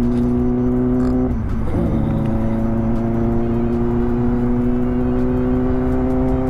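Kawasaki ZX-10R's inline-four engine running at steady revs under way. Its note breaks and dips briefly about a second and a half in, then holds again and slowly climbs.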